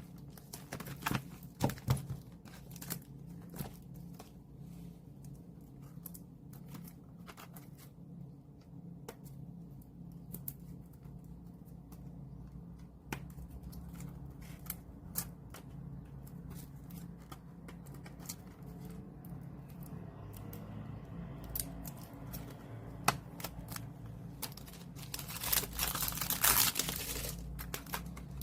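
Hands unpacking an album package: scattered small clicks and taps of paper and plastic being handled, with a louder stretch of tearing and crinkling near the end.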